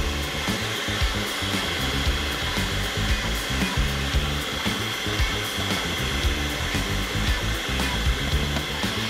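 Electric food processor running steadily with a constant motor whine, chopping and mixing fish fillet and bulgur into a paste.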